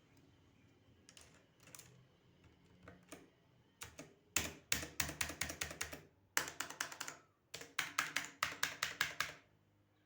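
Typing on a mechanical keyboard: a few scattered key clicks, then about four seconds in, three quick runs of rapid clacking keystrokes, roughly five or six a second, stopping shortly before the end.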